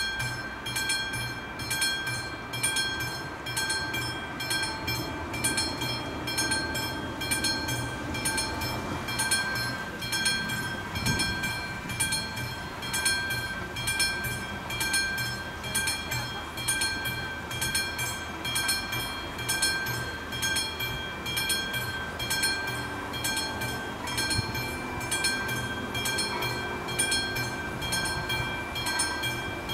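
Electromechanical level-crossing warning bell on an AŽD 71 crossing signal, ringing continuously with rapid, even strokes, each stroke ringing on. It is warning of an approaching train.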